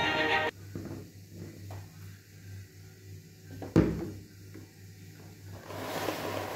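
Plastic action figures being handled on clear plastic packaging trays: one sharp knock just before four seconds in, then a plastic rustle near the end. Music cuts off about half a second in, and a low hum runs underneath.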